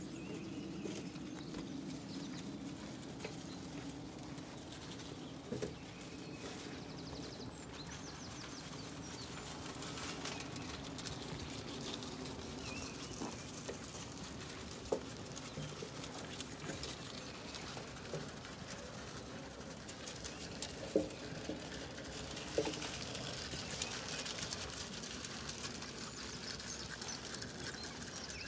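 A flock of Zwartbles ewes and lambs moving about and feeding at a trough on frosty grass: hooves shuffling and feeding noises, with a few sharp knocks and small birds chirping in the background.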